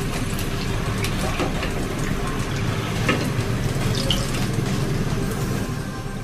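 Hot oil sizzling steadily as spring rolls deep-fry in a wok, with a few light knocks as a wire spider strainer lifts the rolls out.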